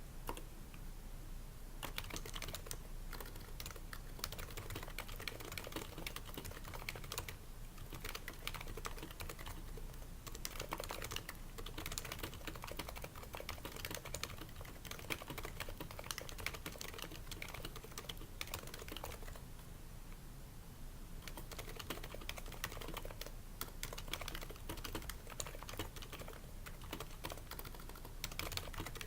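Continuous typing on an HHKB Pro 2's Topre rubber-dome capacitive switches, dampened with o-rings, with lubed slider rails and a shelf-liner-lined case. It is a dense run of keystrokes with short pauses about a second in and about two-thirds of the way through.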